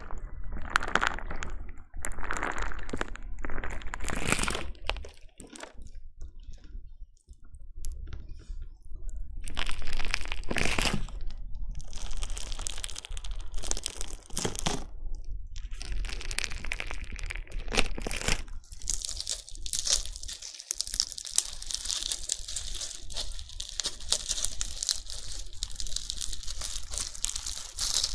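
Crunchy bingsu slime, slime packed with small plastic beads, being worked close to the microphone. It gives bursts of squishing and crackling with short pauses, then about two-thirds through turns into a dense, continuous crackle.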